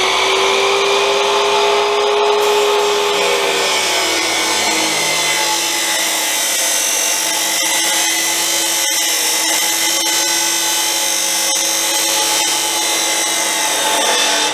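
Abrasive chop saw (2 HP cut-off saw) running and cutting through steel, a steady motor whine over a grinding rasp. Its pitch drops slightly three to four seconds in as the wheel bites into the metal under load.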